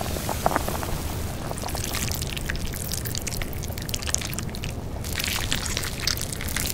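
Braised pork trotters and their thick, sticky braising sauce making wet crackling and dripping sounds. The crackles thicken near the end.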